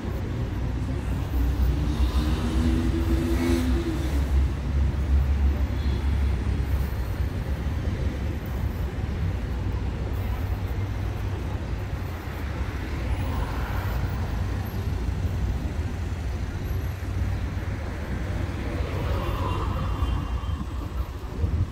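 Road traffic on a busy city street: cars and trucks idling and moving, a steady low engine rumble. A louder pitched engine drone stands out for about two seconds near the start.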